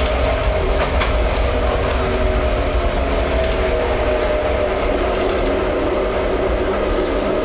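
Tram running along the track: a steady rumble of wheels on rail, with a whine that falls slowly in pitch as it slows, and a couple of sharp clicks about a second in.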